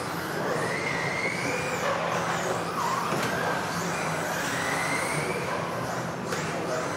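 Electric RC off-road buggies racing: several high motor whines rise and fall in pitch as the cars accelerate and slow around the track, over a steady noisy background.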